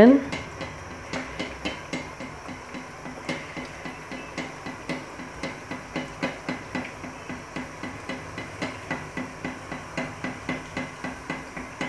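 Alu puri deep-frying in hot oil: a faint sizzle with frequent sharp crackles and light taps, about two or three a second, as a steel slotted spoon presses and bastes the puri to make it puff up.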